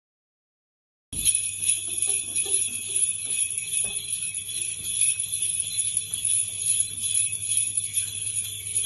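Handheld jingle bells on sticks, several shaken together in a steady, continuous jingle that starts abruptly about a second in.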